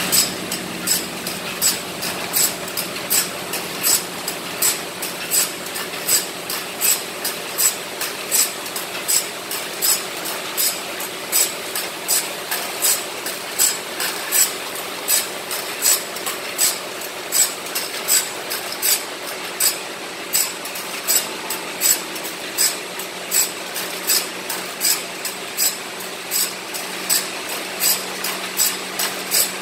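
Automatic bandsaw-blade sharpening machine grinding a large sawmill band blade tooth by tooth. The motor hums steadily while the grinding wheel rasps against each tooth in a sharp, gritty stroke, about two strokes a second in an even rhythm.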